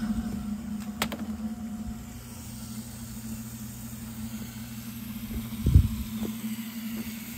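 240-volt electric pond pump running with a steady low hum. A sharp click about a second in, and a dull thump near the end, the loudest moment.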